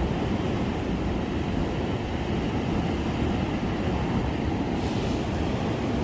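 Steady low rumble of wind and surf at a seawall, with a brief hiss near the end.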